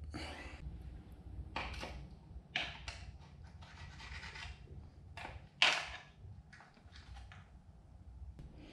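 A screwdriver scraping and prying at the metal throttle linkage of a 1979 Johnson 15 hp outboard, in several short scrapes and rubs, the loudest a little before six seconds in.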